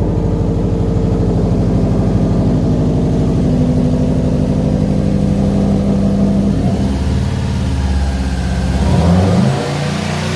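Subaru boxer engine running on fresh oil just after an oil change, idling steadily at first, then revved up and down several times from about two-thirds of the way in, to build oil pressure.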